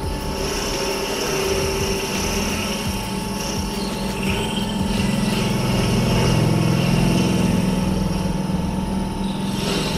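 Esteem M1TR turret milling machine's spindle running as its drill bit cuts into a metal workpiece, finishing the last few millimetres of the hole: a steady machine hum that grows louder around the middle.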